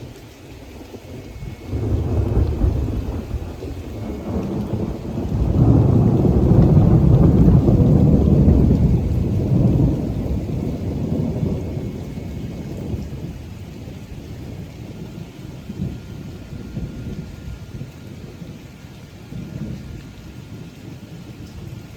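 Thunder during a heavy thunderstorm: a long rolling peal begins about two seconds in, is loudest in the middle, and trails off into a low rumble, with rain falling steadily throughout.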